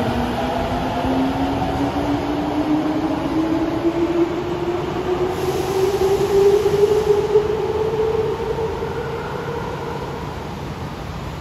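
Tokyo Metro Tozai Line subway train accelerating away from the platform, its traction motors giving a whine that rises steadily in pitch over rolling wheel rumble. The whine fades after about eight seconds as the train leaves the station.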